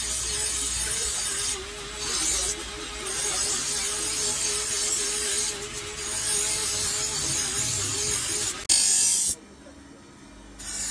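A motor-driven grinding wheel grinds a steel knife blade: a steady hissing grind over the wheel's hum, easing briefly a few times as the blade lifts off. Near the end it drops to a quieter, steady hum of the wheel running.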